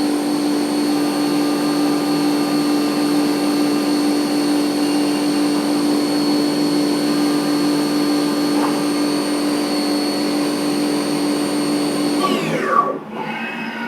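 CNC milling machine spindle running at a steady high-pitched whine with a hiss of cooling air, then spinning down about twelve seconds in, its pitch falling away.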